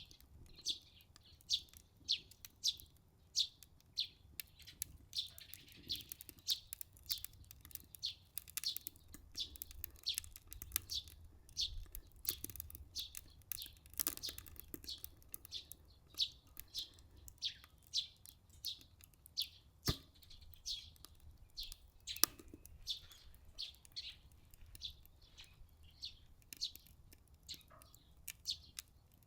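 Small birds chirping steadily, short high falling chirps a couple of times a second, with a few sharp pops and a low rumble underneath.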